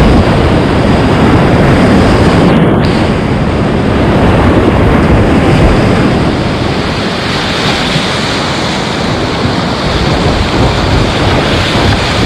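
Whitewater rapids rushing loud and close around a kayak, with water splashing over the bow and spray hitting the camera. The sound is briefly muffled about two and a half seconds in.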